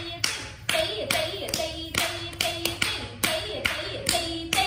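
Bare feet stamping on a wooden floor in a steady rhythm, about three strikes a second: the flat-foot beats of Bharatanatyam thattadavu steps.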